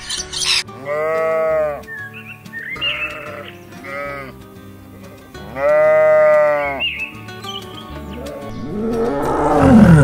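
Sheep bleating over background music: two long, loud bleats, one about a second in and one just past the middle, with shorter bleats between. Sun conures squawk at the very start, and a tiger's roar swells to the loudest point at the end.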